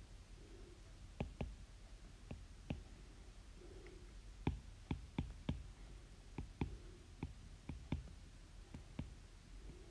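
A stylus tapping and clicking on a tablet's glass screen while handwriting, a faint run of irregular sharp taps, some in quick pairs.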